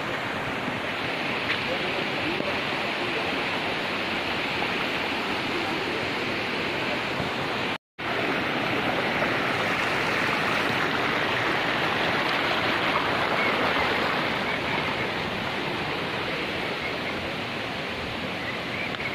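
A forest stream rushing over rocks in a steady, even flow. The sound cuts out for a split second about eight seconds in.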